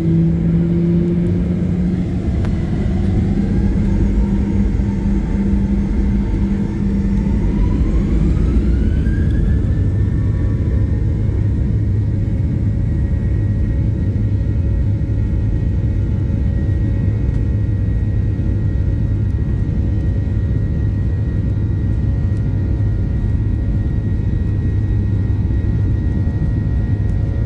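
Airliner engines heard from inside the cabin while the plane taxis: a steady low rumble, with an engine whine that rises in pitch over the first ten seconds or so and then holds steady.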